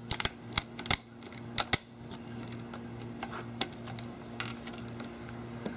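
Ratcheting PVC pipe cutter clicking as it is squeezed and ratchets its blade through PVC pipe: a run of sharp clicks in the first couple of seconds, then lighter ticks, over a steady low hum.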